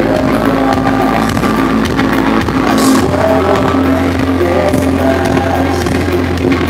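Rock band playing live through a PA: electric guitar, bass and drums, with a sustained low bass note throughout.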